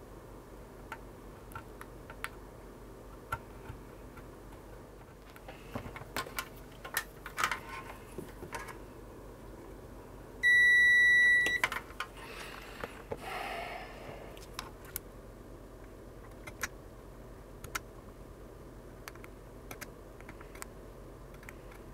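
Digital multimeter's continuity beep, one steady high tone lasting about a second, as the test probes bridge a jumper's pads on the motherboard: the connection is closed. Light clicks and taps of the probes and tools on the board come before and after it.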